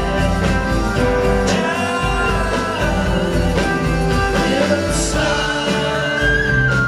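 Live band music with a lead vocal over strummed acoustic guitar, electric bass and drums, in a country-rock style.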